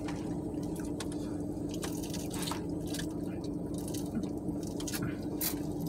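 Small wet clicks and smacks of eating and sipping a soft drink through a straw, scattered throughout, over a steady low hum in the car cabin.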